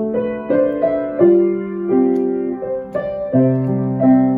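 Piano music: chords and melody notes struck in a steady flow, each note ringing on and fading.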